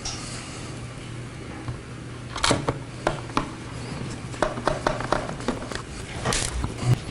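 Scattered clicks and knocks of hard plastic blaster parts being handled and fitted together, with a sharper click about two and a half seconds in and a short scrape near the end.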